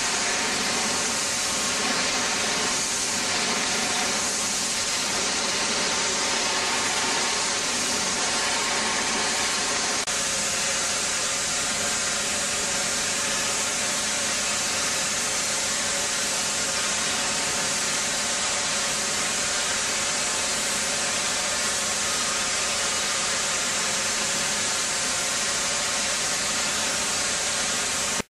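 Ultra-high-pressure water jet (1000–2500 bar hand lance) blasting old paint and rust off a ship's steel hull: a loud, steady hiss with a faint machine hum underneath. It cuts off abruptly at the end.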